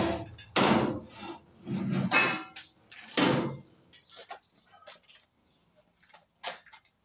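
Steel pipe being shifted on a metal stand: four short, harsh metal scrapes and clunks in the first few seconds, then scattered light clicks and taps.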